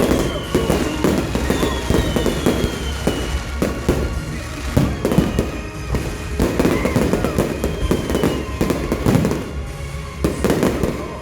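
Fireworks going off in a dense, irregular string of bangs and crackles, with a few high whistles falling in pitch.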